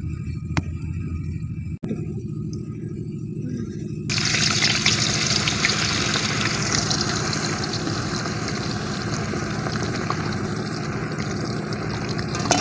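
Potato slices deep-frying in hot oil in an iron kadai: a loud, dense sizzle that comes in abruptly about four seconds in and holds steady. Before it there is only a low rumble with a few sharp clicks.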